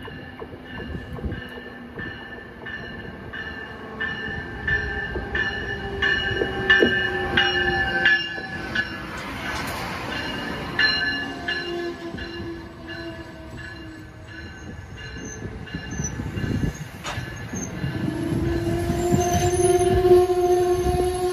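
Amtrak passenger train passing close by: a Siemens ACS-64 electric locomotive, then stainless-steel coaches. The wheels rumble over the rails with short clicks and several steady ringing tones, and it gets louder near the end.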